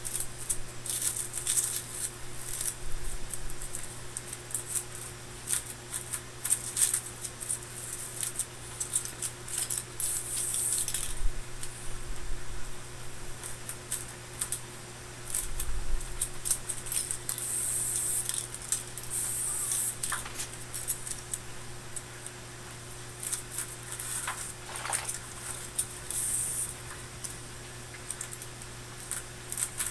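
Crinkled aluminium foil crackling and rustling as foam parts are handled and pressed down on it: an irregular run of crackles with short hissing rustles, over a steady low electrical hum.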